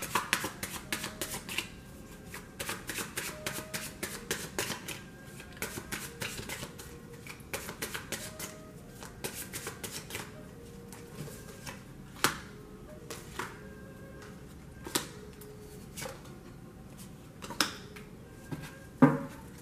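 Tarot cards being shuffled by hand: a fast run of papery card clicks for about ten seconds. After that, single cards are laid down on the table with sharp snaps a couple of seconds apart, the loudest near the end. Faint music plays underneath.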